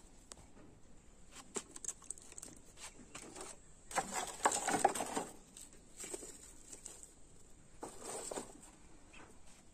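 Dry straw and thin wood splinters rustling and clicking as they are pushed into a clay cooking stove, with a louder crackly burst about four seconds in and a shorter one near the end.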